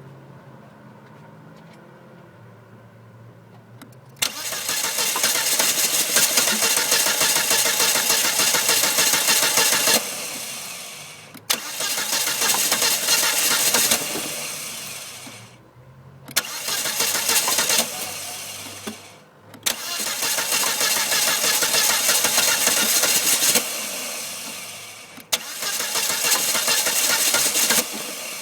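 Volvo S40's starter cranking the engine in five long attempts with short breaks between them, starting about four seconds in, and the engine never settling into a run: a hard-starting engine.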